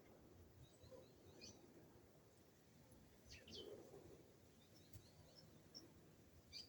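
Faint bird calls: scattered short, high chirps, with a quick pair of downward notes about three seconds in and a sharp chirp near the end, over a low, steady background hiss.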